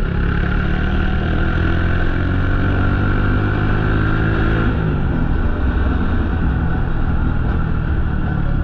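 Motorcycle engine running while riding, with a steady note that drops in pitch about halfway through as the throttle is eased off.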